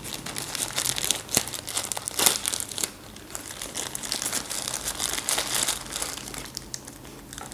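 Thin white wrapping paper crinkling and rustling as hands unfold and crumple it, in irregular handfuls with brief lulls about three seconds in and near the end.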